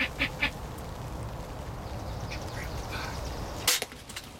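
Wild turkeys clucking: a quick run of short, sharp clucks about a fifth of a second apart, then softer calls a couple of seconds in. Near the end comes a single loud, sharp snap.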